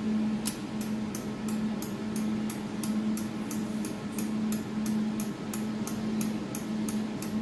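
Even, sharp clicking, about four clicks a second, as the adjustment knob of a jewelry laser welding machine is turned to move the laser support back. A steady hum from the running machine lies underneath.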